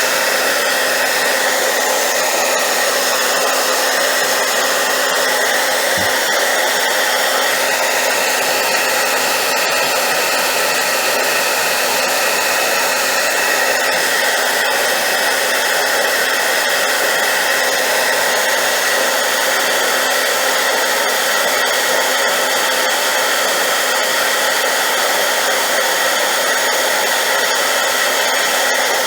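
Hairdryer blowing at high power, a loud steady rush of air with a motor whine running through it.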